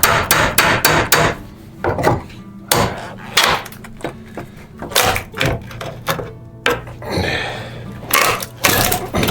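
Hammer blows on old, dry wooden stair timber to knock it loose. There is a fast run of strikes in the first second or so, then scattered blows, and the old wood splinters.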